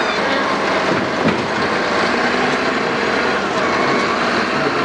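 Heavy diesel machinery running steadily under load, with a few faint clicks and knocks.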